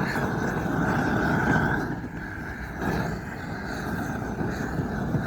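Gas roofing torch burning with a steady rushing noise while it heats a trowel to melt the bitumen of a torch-on membrane; the noise drops a little about two seconds in.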